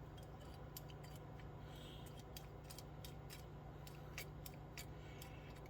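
Faint, scattered light clicks and taps of small metal carburetor parts being handled, over a low steady hum.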